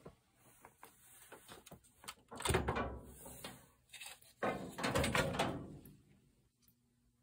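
Handling noise: scattered light knocks and clicks, then two louder scraping rattles about a second long each, starting about two and a half and four and a half seconds in.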